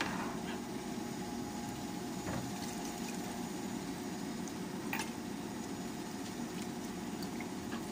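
A thick liver-and-sausage stew in its tomato sauce simmering in a non-stick pan while a silicone spatula stirs it, giving soft bubbling and wet sloshing, with a few faint clicks. A steady low hum runs underneath.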